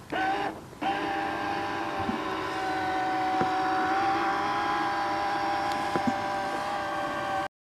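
The electric motor of a Hammacher Schlemmer fish-catching RC boat starts, cuts out for a moment about half a second in, then runs with a steady, loud whine as the boat drives away across the water.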